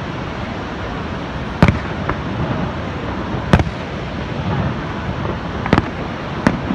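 Aerial fireworks shells bursting: sharp bangs every second or two, starting about a second and a half in, one of them a quick double, over a steady rushing background.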